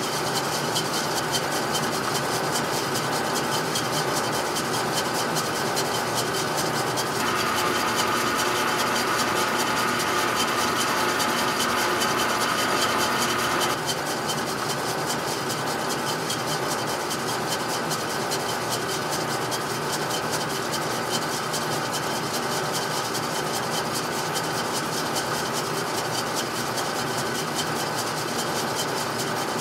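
Atlas milling machine running with a solid carbide end mill taking a light, shallow cut in an aluminum block: a steady whir and hiss of the cut, the machine not laboring. A brighter, higher tone rises over it from about seven seconds in and drops away about fourteen seconds in.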